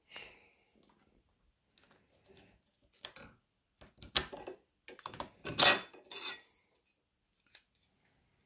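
Hands fitting a 3D-printed ring into an aluminium speaker flange: a few separate scrapes and clicks of plastic and metal, the loudest cluster a little past the middle.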